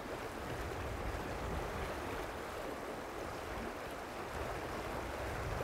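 Shallow river running over stones: a steady rush of flowing water.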